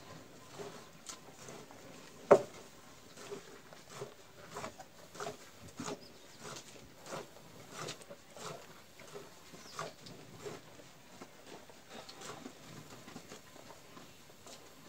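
Milk squirting into a steel pail as a cow is milked by hand: short squirts in an even rhythm, a little under two a second. One sharp knock stands out about two seconds in.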